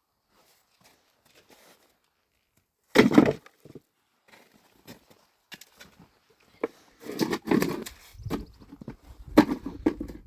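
Irregular knocks, thuds and clatters: a loud cluster about three seconds in, scattered sharp clicks, and heavier bunches of thuds around seven to eight seconds and again near the end.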